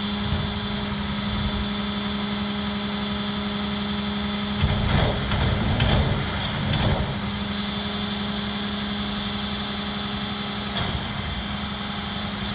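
A steady engine drone holds one unchanging pitch with many overtones, and a few brief low rumbles come about halfway through.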